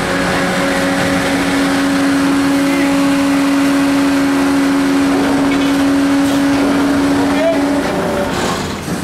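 Steady machinery drone made of several fixed tones over a wash of wind and sea noise. The strongest, lower tone cuts out near the end.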